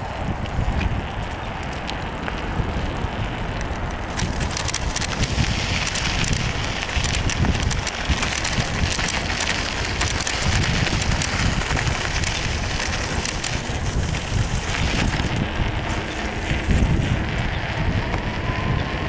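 Wind buffeting the microphone of a camera riding on a moving bicycle, with the bike's rattles and clicks as its tyres roll along the path. In the middle stretch the tyres are on dirt and the crunching hiss is louder.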